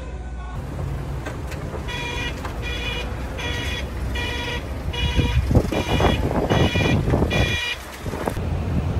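Forklift warning beeper sounding about eight even beeps, a little over one a second, over the propane forklift's engine running; the engine gets louder about halfway through and falls back near the end.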